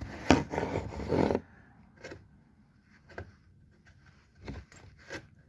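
Hand-tool and handling noises at the transmission drain bolt: a sharp click, about a second of scraping, then a few light scattered clicks.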